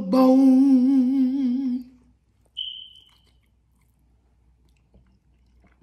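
A man humming one long held note that wavers near its end and stops about two seconds in. About half a second later comes a brief high-pitched tone, then near quiet.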